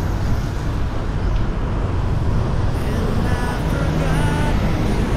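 Steady road traffic noise heard from a moving bicycle, with a heavy low rumble throughout.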